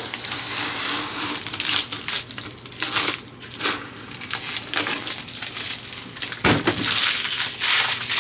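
Plastic protective film and stickers being peeled off and crinkled, in a string of irregular crackling rustles, with a louder crackle about six and a half seconds in.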